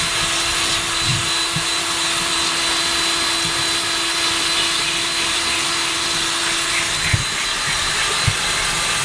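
Electric drill spinning a ball-type flex hone (glaze breaker) inside the bore of an MG tandem brake master cylinder, running steadily with a high whine while tap water runs over the work. A couple of knocks near the end.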